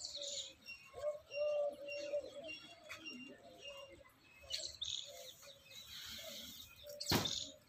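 Birds calling: repeated held cooing notes with short higher chirps between them, and a brief knock about seven seconds in.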